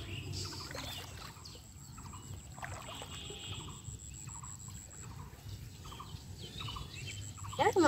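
Pond water sloshing and trickling as a fine-mesh fishing net is hauled in by hand through shallow water, with faint short chirps scattered through. Near the end comes a short, loud call that rises and falls in pitch.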